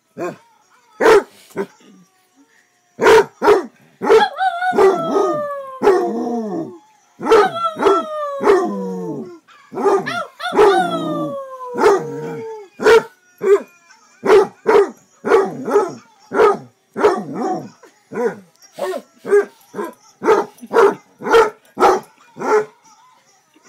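Basset hound barking, then letting out three long howls that slide down in pitch, then breaking into a long run of barks, about two a second.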